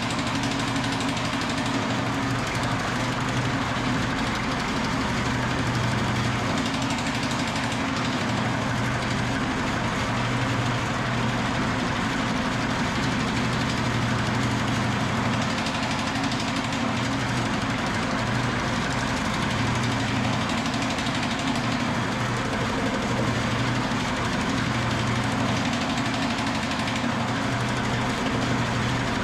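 Shop-built Pullmax-style power hammer running steadily, its dies striking rapidly on a sheet of metal being worked through them. The machine has just been tightened up to take out the slop in its ram.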